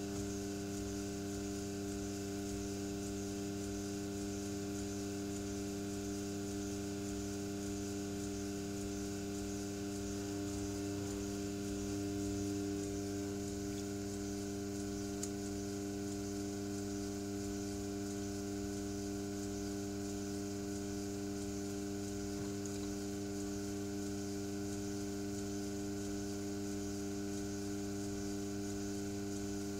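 Electric potter's wheel running, its motor giving a steady, even hum that swells slightly about twelve seconds in.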